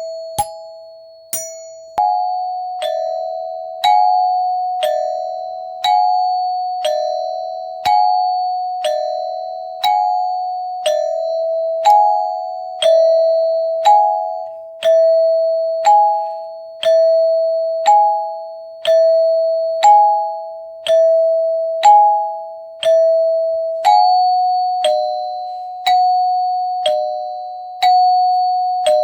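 Doorbell chime ringing ding-dong over and over: a struck high note, then a lower note about a second later, with the pair repeating every two seconds and each note ringing out and fading. Late on, both notes move slightly higher in pitch.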